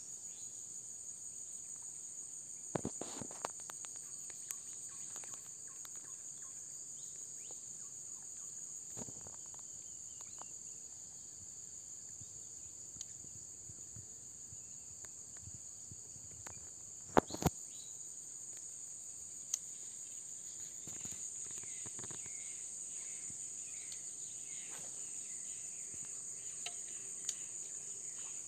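Steady, high-pitched chorus of insects buzzing without a break. A few sharp clicks sound over it, two loud ones close together past the middle.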